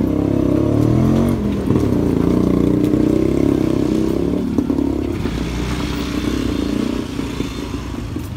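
Motorcycle engine running close by, its pitch rising and falling with the throttle, fading near the end.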